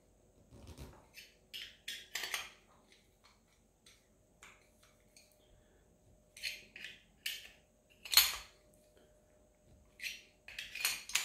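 Small screwdriver turning the cooling-head screws on a Novarossi Bonito nitro engine: irregular short metallic clicks and scrapes, the loudest about eight seconds in.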